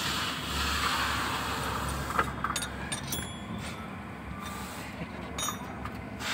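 A steady hiss for about the first two seconds, then a few short metallic clicks and clinks with a brief high ring, over a faint low hum.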